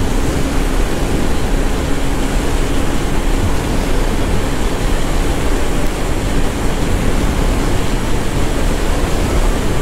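Loud, steady wind rush on the microphone of a motorcycle at highway speed, with a faint steady engine hum from the Bajaj Pulsar NS200 underneath for the first few seconds.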